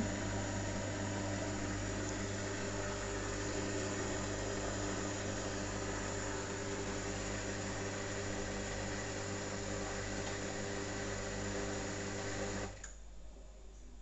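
Hotpoint Aqualtis front-loading washing machine spinning fast: a steady hum with a broad noise over it, which cuts off suddenly near the end. The owner cannot place the noise and his first thought is something caught between the drum and the tub.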